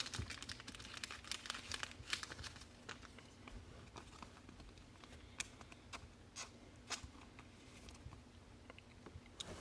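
Faint crinkling and scattered small clicks of a thin plastic card sleeve as a trading card is slipped into it and handled.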